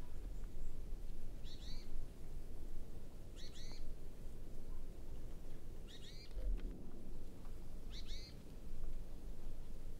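A small bird giving a short high call of two or three quick falling notes, four times, about every two seconds, over a steady low rumble.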